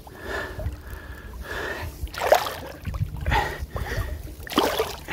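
A man breathing hard in irregular gasps and puffs while struggling with a big hooked fish, over a low rumble of handling or wind on the microphone.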